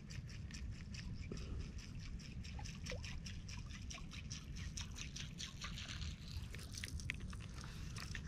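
Shallow shore water trickling and sloshing, heard as a fast patter of small ticks over a steady low rumble.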